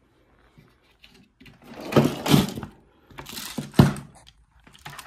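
Tools and small objects being handled and knocked together, an irregular clatter with a sharp single knock near four seconds in.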